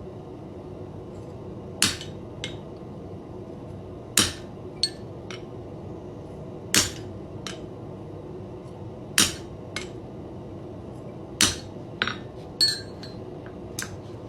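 Hammer striking a center punch into iron to dot the bulldog's whiskers: five sharp metallic strikes about every two and a half seconds, each followed by one or two lighter taps, over a steady low hum.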